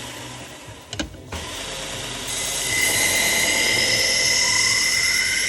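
Belt sharpener with a worn 200-grit 3M Trizact abrasive belt grinding the steel edge of a pocket knife blade. After a short click about a second in, the grinding builds into a loud, steady hiss with a high whine, raising a burr on the far side of the edge.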